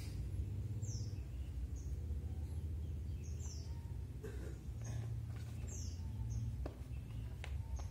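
Birds chirping: short, high, falling calls every second or so over a steady low hum, with a few faint clicks near the end.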